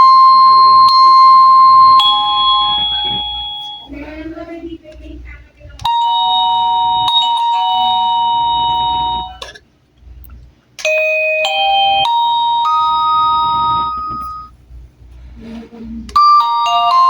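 Daytech wireless doorbell receiver playing its electronic chime tunes one after another: a falling two-note ding-dong, then a held two-tone chime, then short stepped melodies, each ending before the next starts.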